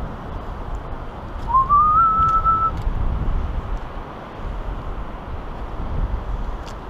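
A single short whistled note about a second and a half in: it wavers upward and then holds steady for about a second. Under it is a steady low rumble of wind on the microphone.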